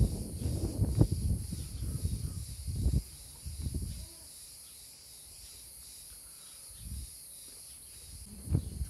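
Steady high-pitched chorus of insects, with irregular low rumbling and knocking noise over it for about the first three seconds that then dies away.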